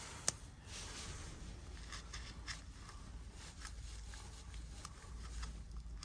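Small clicks and light scraping of metal tweezers working at the battery's adhesive strips inside an opened iPhone 7 Plus, with one sharper click just after the start.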